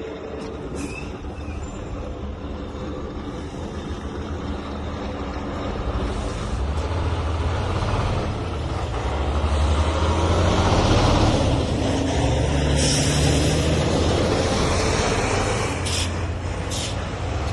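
Motor vehicle running, a steady low engine rumble with road noise that grows louder about a third of the way in and stays up, with a couple of short clicks near the end.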